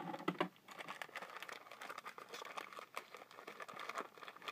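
Packaging wrap crinkling and crackling as it is handled and pulled apart, in many small crackles, a little louder in the first half-second.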